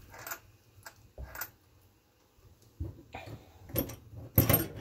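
Metal hex drivers and small parts being handled and set down on a wooden workbench: a string of short clicks and knocks, closer together and loudest near the end.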